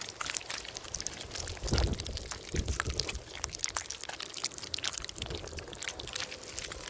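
Crab in shallow water: water trickling and splashing, thick with small clicks and crackles, with two louder low thumps about two seconds in.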